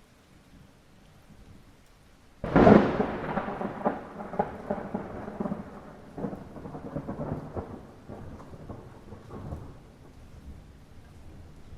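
Light rain, then a sudden thunderclap about two and a half seconds in that crackles and rumbles away slowly over the next several seconds.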